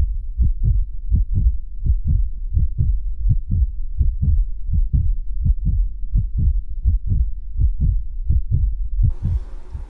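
Deep, muffled bass thumps in a steady fast beat, about three a second, from the title card's intro soundtrack. A faint hiss joins near the end.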